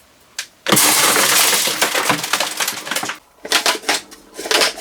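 Packaging being handled: a single click, then loud crinkling and crackling from just under a second in, breaking into shorter crackly bursts in the second half.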